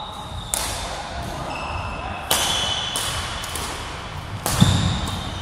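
Badminton rally: rackets strike a shuttlecock three times, about two seconds apart, each hit sharp and echoing in a large hall. Short shoe squeaks on the wooden court follow the hits, and a low thump of a footfall comes with the last hit near the end.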